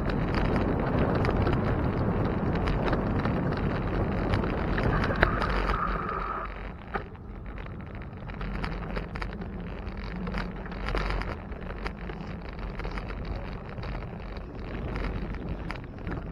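Wind buffeting the microphone, mixed with the rolling noise of a moving bicycle. The rush eases about six seconds in, leaving a lower rumble with scattered clicks and rattles. A brief steady high tone sounds just before the drop.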